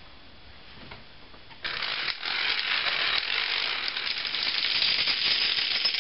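A long chain of toy dominoes toppling: a rapid, dense clatter of clicks that starts abruptly about a second and a half in and keeps going as line after line falls.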